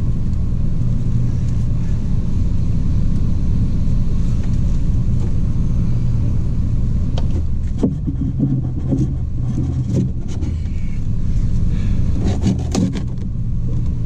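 A steady low machine hum and rumble, with a cluster of light knocks and clicks from about seven seconds in as PVC conduit and fittings are handled and pushed together.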